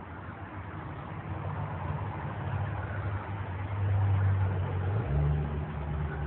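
1953 GMC cab-over tow truck's engine idling, a low steady hum that grows louder toward the cab, its note shifting about five seconds in.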